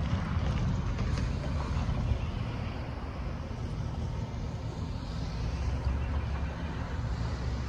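Steady low rumble of a freight train's cars rolling away on the rails.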